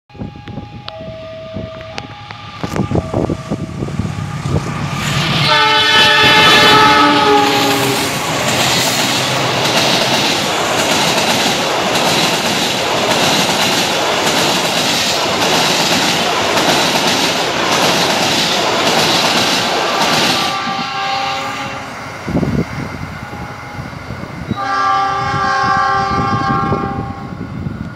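Diesel locomotive horn sounds a multi-note chord about five seconds in, then the passenger train passes at speed, its wheels clattering over the rail joints. The horn sounds again briefly, and once more for a couple of seconds near the end as the train draws away.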